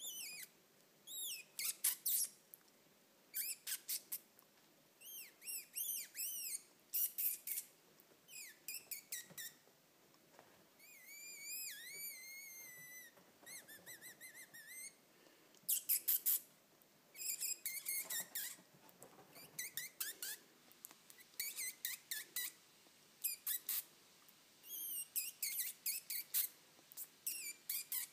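Repeated short, high-pitched whistles and squeaky chirps, coming in quick clusters with short gaps between them.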